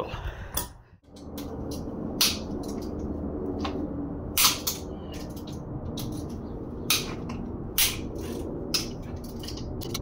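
A socket wrench working bolts on a bare engine block, giving sharp metal clicks and clinks at irregular moments, about half a dozen, over a steady low hum.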